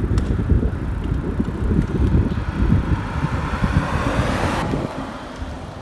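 Wind buffeting the microphone while moving alongside a cyclist on a street, with road noise under it. It is a dense, fluttering rumble that fades near the end.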